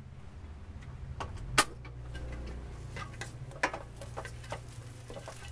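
Spatula knocking and scraping against a stainless steel wok as cooked rice is stirred in with egg, chicken and shrimp: a series of short sharp taps over a low steady hum.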